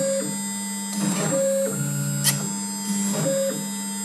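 CNC router milling small holes in polycarbonate: the stepper motors give out shifting, musical tones that repeat as the machine runs a small circle for each hole, over the steady hum of the Huanyang spindle. One sharp click comes a little past halfway.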